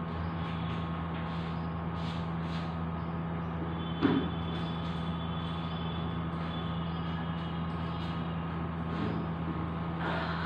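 Steady, machine-like background hum made of several held tones, with one sharp knock about four seconds in.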